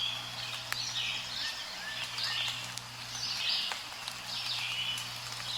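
Birds chirping in repeated short calls over a low steady hum, a recorded nature-ambience intro heard through video playback.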